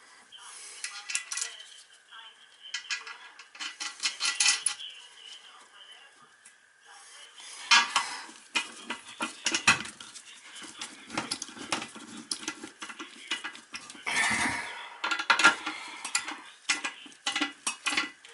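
Irregular clinking and clattering of small hard parts, such as metal toilet hardware and fittings, being handled and set down. Sparse at first, busier and louder from about seven seconds in.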